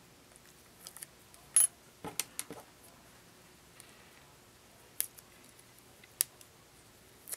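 Small metal corner embellishments clicking and tapping as they are handled and set down on a tabletop: about half a dozen light, sharp clicks, the loudest about one and a half seconds in.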